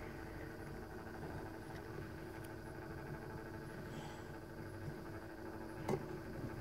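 Steady hum of a small electric motor turning a display turntable, with one short click about six seconds in.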